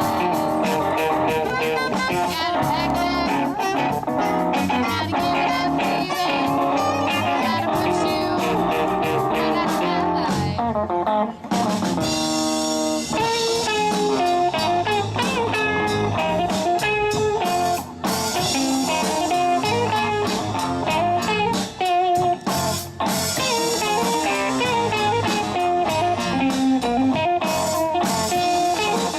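Live band playing a blues-rock number: electric guitar over bass and drum kit.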